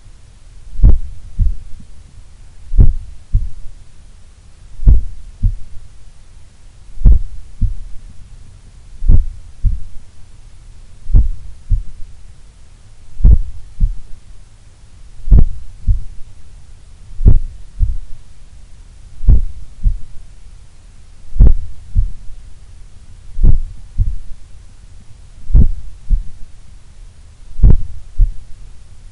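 A human heart heard through a stethoscope on the chest: lub-dub pairs of thumps about half a second apart, repeating only about once every two seconds, a very slow resting heart rate.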